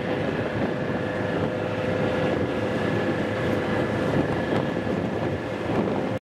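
A car ferry's engines run steadily under wind buffeting the microphone, with a faint steady hum. The sound cuts off abruptly just before the end.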